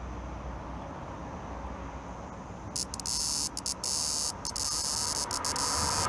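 Ko-ezo-zemi cicada (Lyristes bihamatus) starts its song about halfway through: a loud, high, continuous buzz broken by a few short gaps. Before it starts there is only a low steady background noise.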